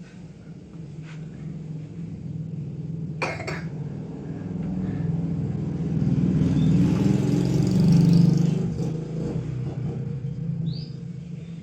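A motor vehicle's engine running, growing louder to a peak about eight seconds in and then fading. Two sharp clicks come about three seconds in.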